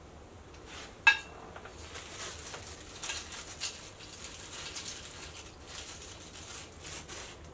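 Black steel desk-frame bar knocking against the frame with a short metallic ring about a second in, then a run of small metal clicks and scrapes as it is worked into place.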